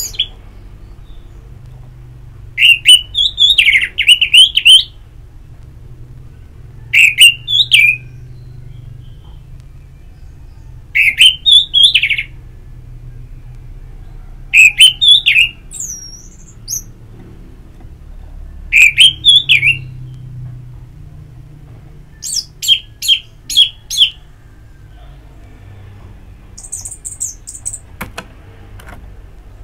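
Orange-headed thrush singing loudly: a short phrase of quick whistled notes that rise and fall, repeated every three to four seconds. Near the end come a run of short sharp notes and a few high chirps.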